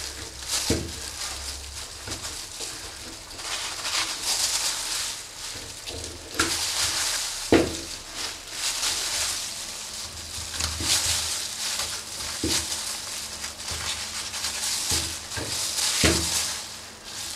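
Knife cutting and scraping meat away from the bone of a front pork hock on a stainless steel table, a wet scraping noise broken by a few sharp clicks of the blade, the loudest about halfway through.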